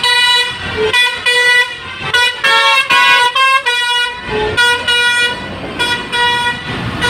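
Bus telolet horn, a set of multi-tone air horns, playing a quick tune: runs of short notes stepping up and down in pitch, in phrases about a second long with brief gaps between them.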